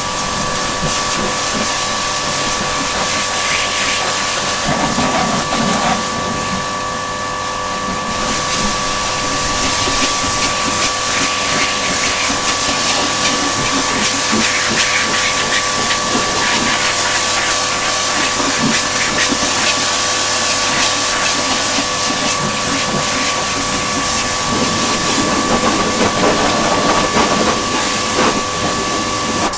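Kärcher K7.20 pressure washer running and spraying: a steady whine from its motor and pump over the loud hiss of the high-pressure water jet, the machine now working properly after the repair. The sound cuts off suddenly at the end.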